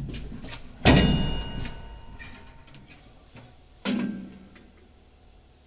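Steel wrench and drive parts knocking against the unload auger drive as a tank auger clutch is fitted on a combine: a loud metal clank about a second in that rings on, a weaker ringing clank near four seconds, and light metallic ticks between.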